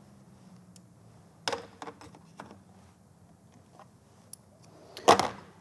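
A few light metal clicks as a socket is knocked against a wrench's square drive, the drive size not matching the socket and no adapter at hand. A short louder noise comes near the end, over a faint steady hum.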